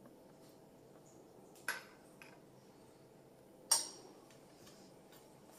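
A metal spoon clinks twice against a small glass, about two seconds apart, the second clink louder and ringing, as soaked basil seeds are spooned in.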